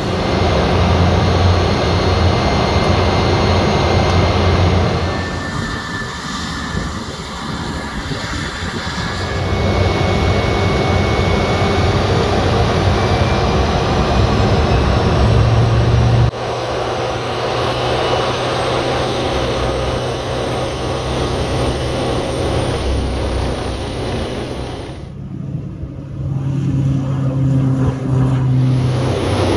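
Small propeller planes' engines running loud, in a string of clips that change abruptly about halfway through and again a few seconds before the end.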